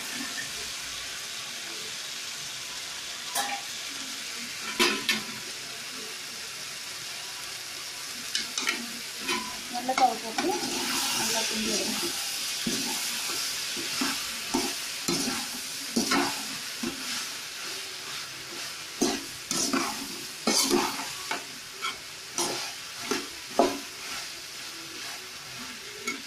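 Vegetables for a poriyal sizzling in hot oil in a kadai. A spatula stirs them, scraping and knocking against the pan in short, irregular strokes that come more often through the second half.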